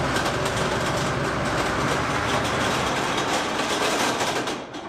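Type 69-II tank's V12 diesel engine running, with a rapid mechanical clatter over a deep steady rumble, fading out near the end.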